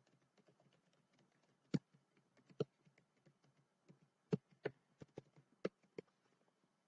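Typing on a computer keyboard: irregular, faint keystrokes with a handful of sharper, louder key strikes, as an email address is entered.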